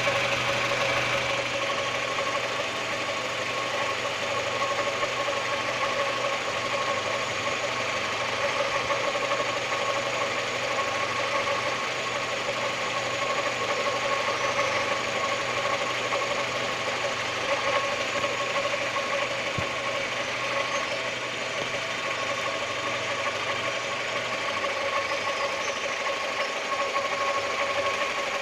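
Chevrolet Lacetti 1.4-litre four-cylinder petrol engine running steadily at idle, with a steady tone over the engine noise. This is the extraneous noise that appeared after the timing belt was replaced.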